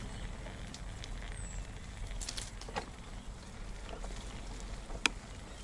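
Bicycle riding along a dirt forest trail: the tyres keep up a steady low rumble over the ground, with scattered light clicks and ticks and one sharp click about five seconds in.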